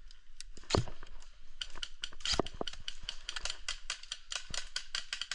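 Airsoft guns firing, a rapid run of sharp clicking shots at about six or seven a second from about one and a half seconds in, with a louder knock just before.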